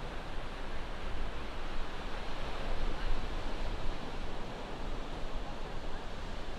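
Ocean surf washing onto the beach, a steady rushing wash that swells about three seconds in, with wind rumbling on the microphone underneath.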